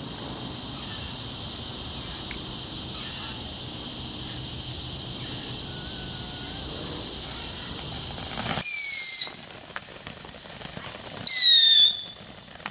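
Consumer whistling firework: a steady hiss, then two loud, short, high whistles about two and a half seconds apart, each falling slightly in pitch.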